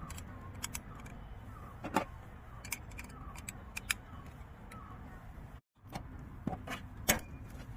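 Light metallic clinks and taps from the small titanium parts of a portable camping incense burner being handled, about eight scattered clicks over a low steady rumble.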